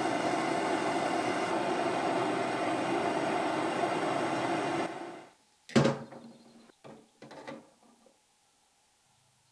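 A workshop power tool's motor running steadily, then switched off and spinning down about five seconds in. A sharp knock follows, then a few softer knocks, as of tools or workpieces being handled.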